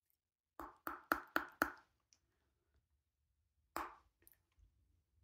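Teeth clacking shut in quick air bites: five sharp clacks within about a second, then one more about two seconds later.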